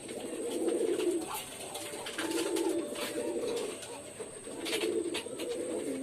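Domestic pigeons cooing: a run of low, rolling coos, one after another every second or so, with a few short clicks in between.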